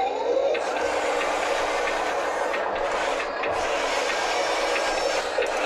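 Huina 1583 RC metal wheel loader's electric motors and gearing running steadily as it drives and lifts its bucket.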